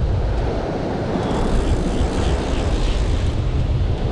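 Rough surf surging and washing against a rocky shoreline, with wind rumbling on the microphone; a steady noise heavy in the low end.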